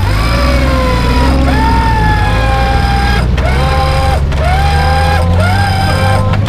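Winch on a small 4x4 whining in a series of short pulls. Each pull rises quickly in pitch as the motor spins up, then holds under load as the winch hauls the vehicle's own front end up off the ground on a cable hung from an overhead pole. The vehicle's engine runs steadily underneath.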